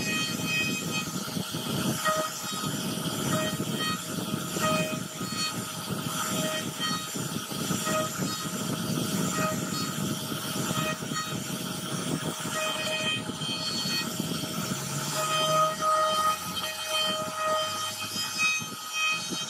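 CNC router spindle whining at a steady pitch while its router bit carves a relief pattern into a wooden panel, with a rough cutting noise underneath. The whine swells briefly every second or so as the bit bites into the wood.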